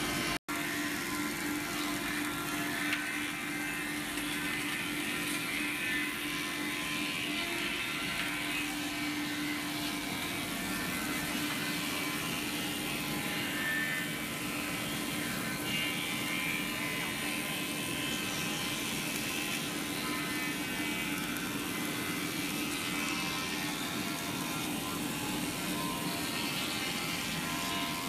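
Sawmill machinery running with a steady mechanical drone as a cant is fed through a saw between vertical feed rollers. A steady hum at one pitch sounds over the first ten seconds or so, then fades.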